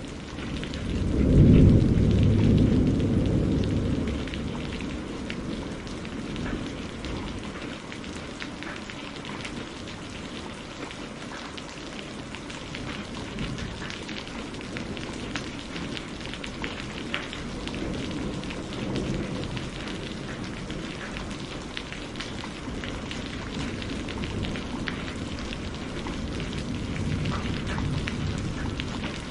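Steady rain pattering during a thunderstorm. About a second in, a loud low roll of thunder builds and fades over a few seconds, and fainter rumbles come twice more later on.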